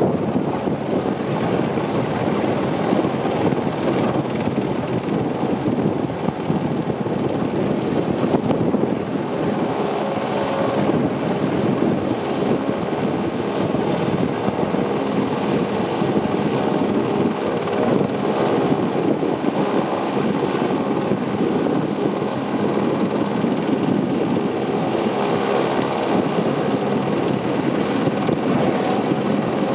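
Squirrel helicopter hovering, its turbine engine and rotor running steadily, with a thin high whine above the rotor noise.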